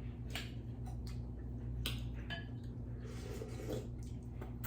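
A few faint clinks of spoons against soup bowls over a steady low hum.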